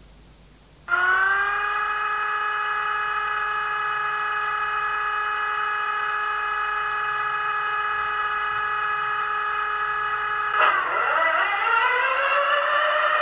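Digital sound decoder playing a Class 37/9's Mirrlees diesel engine through a model locomotive's small speaker. It comes on abruptly about a second in, glides up briefly and settles to a steady idle. Near the end the pitch dips and then climbs as the engine revs up.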